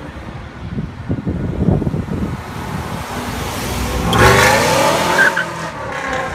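A car engine revving hard as the car accelerates. It is uneven at first, then loudest about four seconds in as the pitch climbs. A brief high-pitched chirp follows shortly after.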